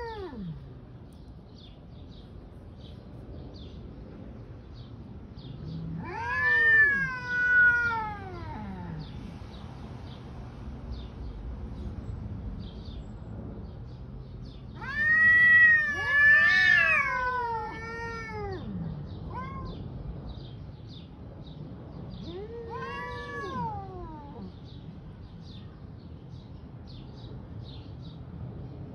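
Two tomcat-style cats caterwauling in a face-off: three drawn-out, wavering yowls that rise and fall in pitch, the middle one loudest, with quieter stretches between them.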